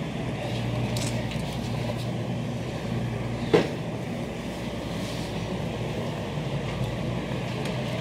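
Steady rumble and rattle of a wire shopping cart rolling over a hard store floor, with a single sharp clack about three and a half seconds in.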